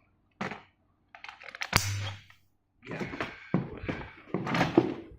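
Hard plastic parts of a Dyson V10 cordless vacuum clicking and knocking as the wand and accessories are handled and fitted together: a few separate clicks, one loud click with a short dull thump a little under two seconds in, then a run of quicker rattling clicks.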